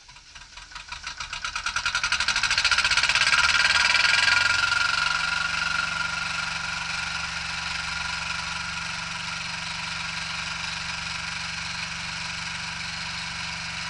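Sailboat's inboard diesel engine starting: it fires in quick pulses that grow louder over the first couple of seconds, then settles into steady running at idle.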